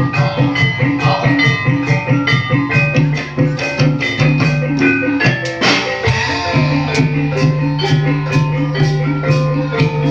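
Javanese gamelan-style ensemble music: drums and struck metallophones playing a fast, steady rhythm, with one louder stroke a little past halfway.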